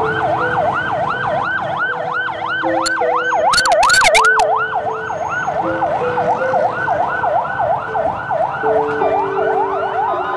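An emergency vehicle's siren wailing fast, sweeping up and down about three to four times a second, over steady lower tones that step in pitch. A short burst of sharp cracks comes about three and a half seconds in.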